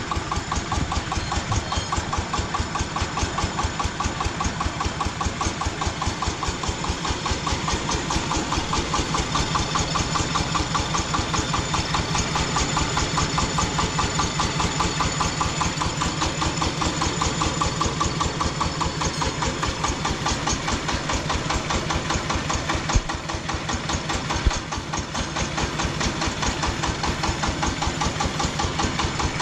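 Jiangdong single-cylinder diesel engine on a homemade tractor idling steadily, with an even, rapid chugging beat. Two sharp clicks come near the end.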